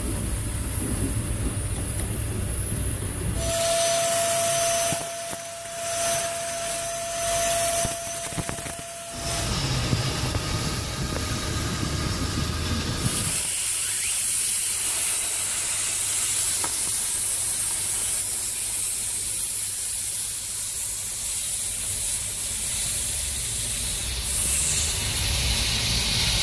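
Steady hissing of a detailing tool blown or drawn along the seams of a car's door seal and leather seats. It shifts in tone several times, with a faint steady whine for a few seconds early on and a brighter hiss from about halfway through.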